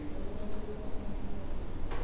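Steady low background hum and room noise, with no distinct sound event.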